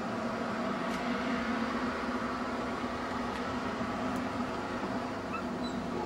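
A steady droning hum with hiss, even in level throughout, with a few faint high clicks.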